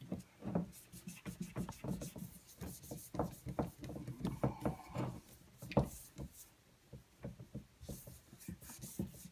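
A small piece of cloth rubbing Rub 'n Buff into the etched lettering on a glass jar: a run of short, irregular scrubbing strokes on the glass.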